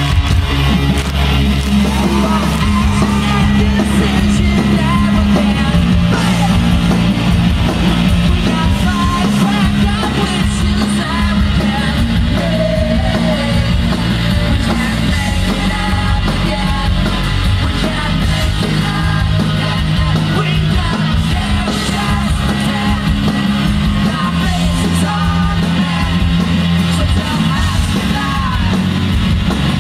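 Live rock band playing loud and steady, with electric guitars, bass and drums under a male lead singer, heard from within the audience.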